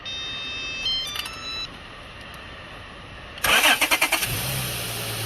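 Acura TL V6 engine cranked over by its starter with rapid pulsing, catching about four seconds in and settling into a steady idle with no belt squeal, on a newly fitted serpentine belt. Before that, a short run of high electronic tones changing in pitch.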